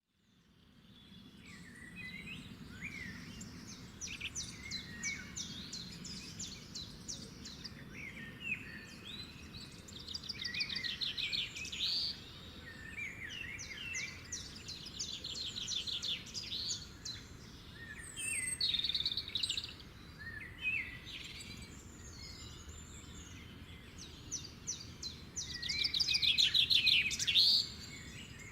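Small birds chirping and calling, with short rising and falling chirps and several fast rattling trills. The loudest trill comes near the end.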